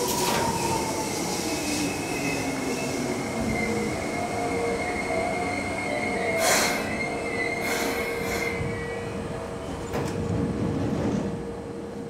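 Seibu electric commuter train slowing to a stop at a platform: its motor whine falls in pitch as it slows, with a steady high brake squeal. Short bursts of hiss come about six and a half and eight seconds in, and there is a sharp click near ten seconds.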